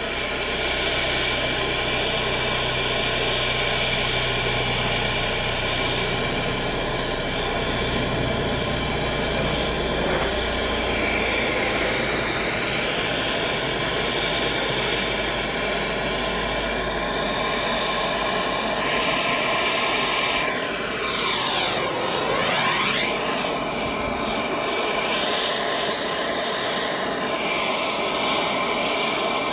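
Hand-held gas melting torch flame burning with a steady rushing hiss. Its low rumble drops away about two-thirds of the way through, and the hiss sweeps briefly down and back up in pitch a few seconds later.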